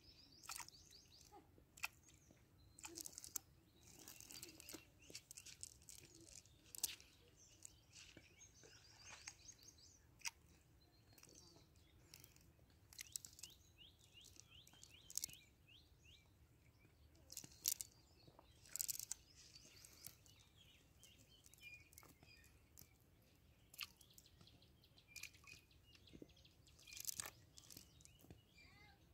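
Mostly quiet, with scattered faint crackles and rustles from a cast net being handled and picked over on dry ground. Faint bird chirps can be heard now and then.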